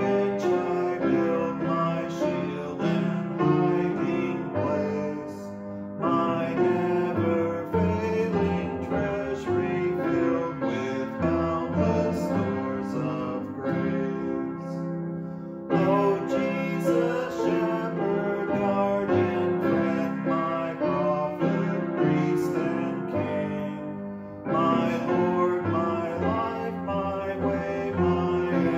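Upright piano playing a slow hymn, in phrases that each start loud and fade toward a short break, with new phrases beginning about six, sixteen and twenty-four seconds in.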